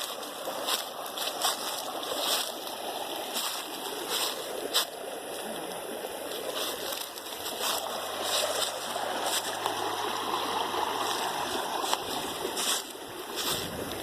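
Running water with frequent small splashes, an even rushing noise.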